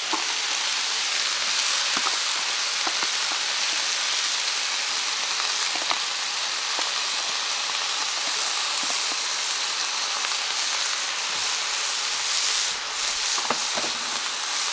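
Diced beef, pork and red pepper frying in hot rapeseed oil in a wok as chopped spring onions are tipped in. There is a steady sizzle with scattered small pops.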